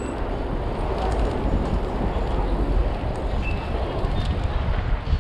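Wind rushing over a chest-mounted GoPro's microphone while cycling along a city street, a steady low rumble with road and traffic noise mixed in.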